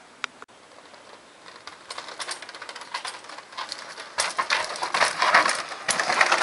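Mountain bike descending a rocky trail: tyres crunching and clattering over loose stones, growing louder from about four seconds in as the bike comes close.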